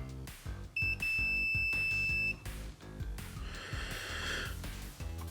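Multimeter continuity-test beep: one steady high tone, about a second and a half long, starting about a second in, showing a connection between the probed points. Background music plays throughout.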